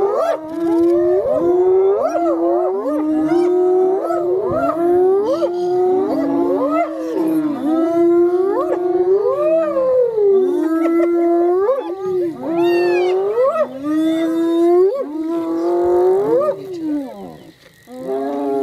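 A pack of spotted hyenas calling at a kill: many overlapping whining, yelping calls that glide up and down in pitch, almost without a break, fading briefly near the end.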